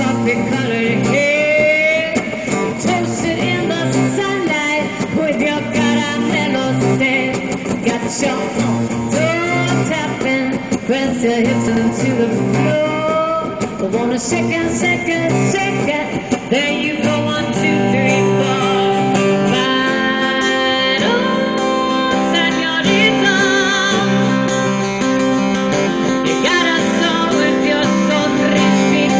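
Live acoustic guitar strummed steadily, with a woman singing over it in a sung line that rises and wavers, strongest about three-quarters of the way through.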